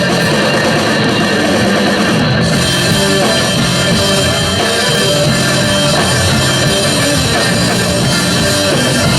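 Loud hard-rock music with distorted electric guitar and drum kit.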